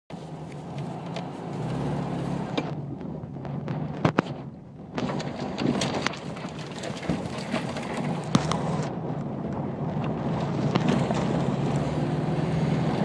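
A VW Beetle's air-cooled flat-four engine running steadily while the car drives over a rough, rocky dirt track, heard from inside the car, with the body rattling and knocking over the bumps. Sharp jolts come a little after four seconds in and again near eight seconds.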